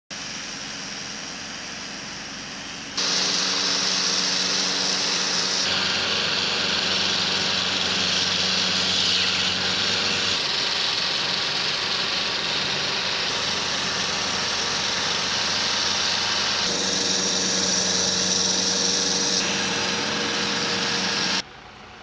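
Steady engine and machinery noise from construction equipment, quieter for about the first three seconds, then much louder. Its pitch and character change abruptly every few seconds.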